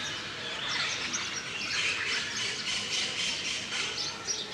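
Many birds chirping and squawking at once in a dense, busy chorus of short high calls.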